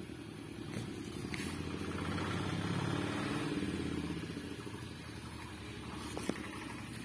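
A motor vehicle engine passing by, growing louder to about three seconds in and then fading away.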